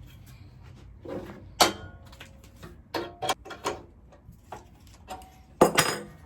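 Handling clatter from the beam saw's bevel adjustment being loosened and shifted: a run of sharp metal clacks and knocks. The loudest come about a second and a half in and again near the end.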